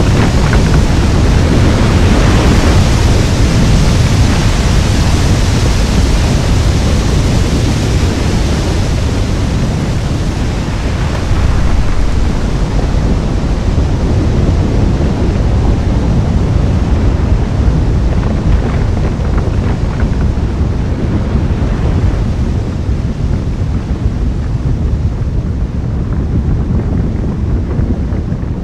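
Loud, steady rumbling noise, heaviest in the low end, with no clear pitch or separate events; its upper hiss slowly thins out over the last several seconds.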